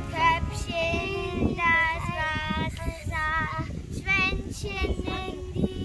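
A young girl singing a song, her voice rising and falling in short phrases with a wavering pitch.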